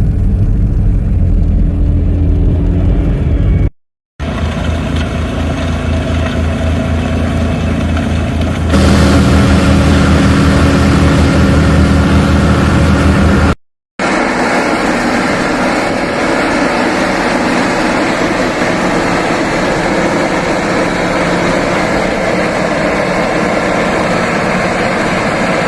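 Running vehicle engines heard in three separate clips, each ending in an abrupt cut: a steady low engine hum in the first two, and a steady rushing noise in the third.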